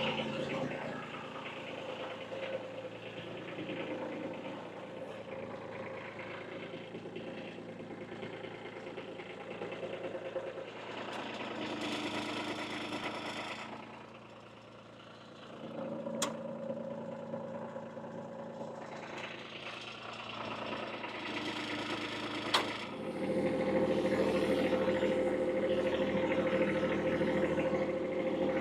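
Kubota B2301 compact tractor's diesel engine running steadily, with two sharp clicks a few seconds apart in the middle. The engine gets noticeably louder near the end.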